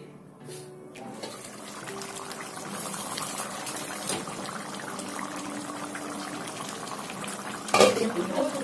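Chicken curry gravy simmering in a pan: a steady wet bubbling with small pops. A brief louder knock comes near the end.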